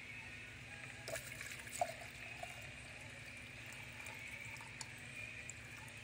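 Water poured from a plastic jug into a flat lap's plastic drip tank, splashing into the water gathering inside. A few light knocks between one and two and a half seconds in.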